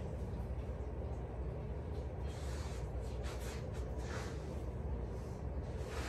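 A hairbrush drawn through a child's hair in several short, soft swishes, starting about two seconds in, over a steady low room hum.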